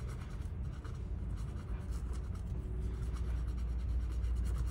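Foam-tipped cleaning swab scrubbing rapidly back and forth over a chip on a TV mainboard, wiping off old thermal paste residue. It makes a quick, continuous scratchy rubbing over a steady low hum.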